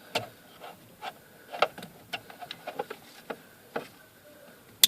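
Plastic parts being handled: scattered light taps and rubbing as the wiring plug is lined up with a new indicator stalk, then one sharp click near the end as the plug latches home.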